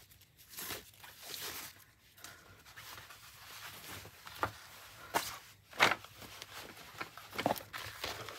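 Hands handling a bundle of cotton quilting fat quarters and plastic packaging: soft rustling of fabric with scattered sharp crinkles and taps, the loudest between about four and six seconds in.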